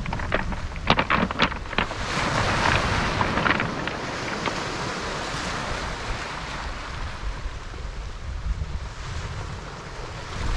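Footsteps crunching on beach pebbles, a run of sharp clicks in the first two seconds, then the wash of waves over the shingle, with a steady low wind rumble on the microphone.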